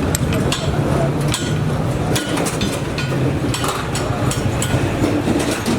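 Irregular metallic clicks and taps of hand work on a hydraulic jack's parts, over a steady low hum.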